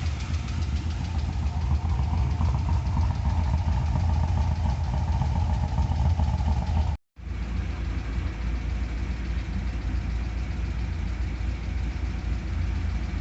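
2002 Corvette's LS1 V8 idling with a fast, even ticking from the valvetrain, after a Brian Tooley Stage 2 camshaft install; the owner wonders whether the tick is normal. The sound drops out briefly about halfway through, then the engine carries on idling.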